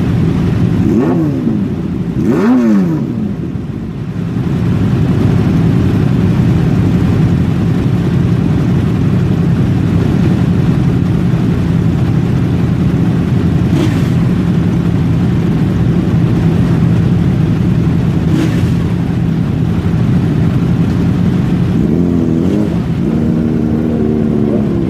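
Loud vehicle engines running, the revs swinging up and down twice in the first few seconds, then a steady drone through the middle, and revving up again near the end.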